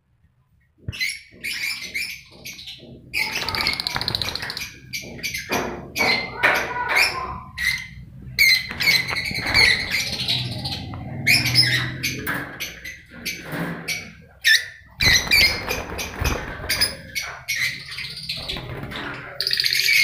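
A flock of caged Fischer's lovebirds calling in many overlapping shrill chirps and squawks, starting about a second in.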